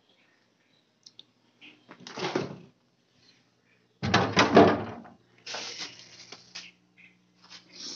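Refrigerator crisper drawer and door being handled: a few clicks and short plastic clatters, the loudest about four seconds in, followed by a faint steady low hum.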